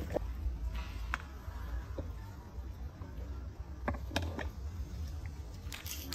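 Asian small-clawed otter chewing chilled lettuce, with short crisp crunching bites now and then, a few close together about four seconds in, over a low steady rumble.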